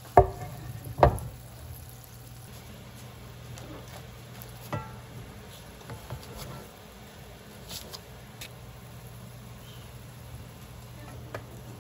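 A heavy cast-iron Staub pot set down on a wooden cutting board, with two loud knocks near the start. Then a few faint clicks and taps as raw chicken is laid over the tomatoes with a wooden utensil, over a steady low hum.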